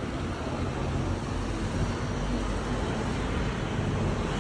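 Steady low rumble of a motor vehicle running, with an even hiss over it and no sudden sounds.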